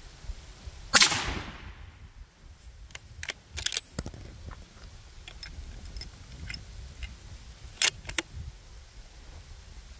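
A single rifle shot from an AR-style rifle about a second in, with its report ringing out for about a second. Several sharp clicks follow around three to four seconds in, and a pair near the end.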